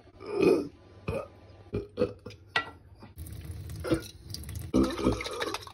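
A few short clicks and knocks, along with a person's short throaty vocal noises. From about three seconds in, tap water runs into a glass jar of tomato sauce in a stainless-steel sink.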